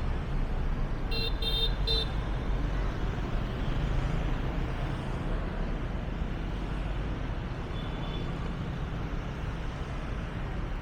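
Steady street traffic rumble, with a horn giving three quick short beeps between one and two seconds in.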